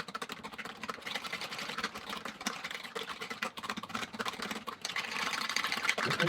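Utensil mashing and stirring boiled potatoes with butter and milk in a cooking pot: a continuous rapid run of clicks and scrapes against the pot along with wet sounds from the potatoes.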